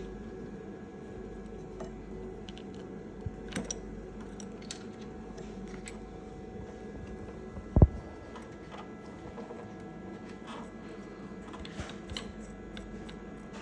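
Scattered small clicks and taps of equipment being handled, over a steady machine hum, with one loud thump about eight seconds in.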